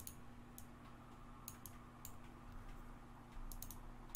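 Faint, irregular clicks of computer input devices while photo editing: a few single clicks, then a quick run of about five near the end, over a low steady hum.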